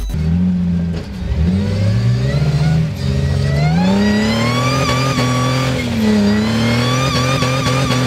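Jeep Wrangler Rubicon's engine revving under load as it crawls over boulders. The revs climb steadily for a few seconds, dip briefly, then hold steady.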